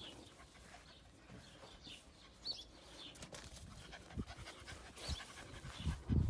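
Goldendoodle puppy panting, with a few faint high chirps and some low thumps near the end.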